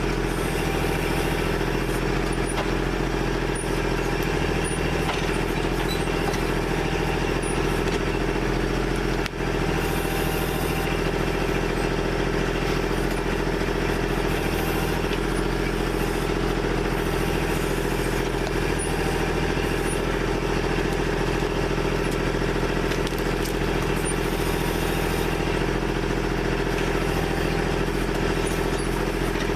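Kubota backhoe's diesel engine running steadily, with a brief dip in level about nine seconds in.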